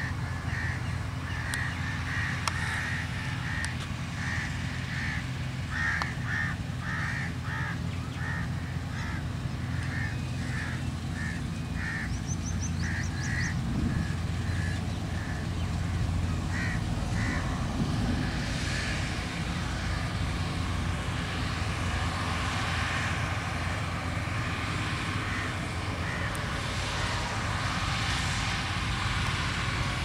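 New Holland 8070 combine harvester running steadily as it cuts wheat: a low engine drone, joined in the second half by a broader rushing noise of the cutting and threshing. Crows caw over it again and again through the first half.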